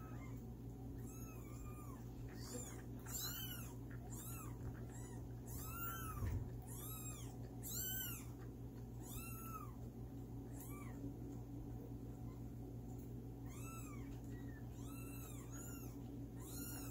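Eight-day-old kittens mewing: repeated short, high-pitched mews, each rising and falling in pitch, with a pause of a couple of seconds near the middle. The kittens are crying for milk while one of them is bottle-fed.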